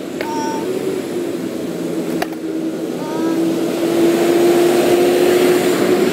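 Engine of a passing box truck, growing steadily louder as it approaches, with a steady hum under it. A single sharp knock about two seconds in.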